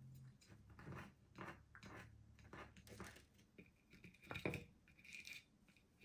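Faint clicks and knocks of a green-cheeked conure foraging at a wooden toy, nudging the wooden pieces and cup with its beak, the loudest knock about four and a half seconds in. Two brief high squeaks come near the end.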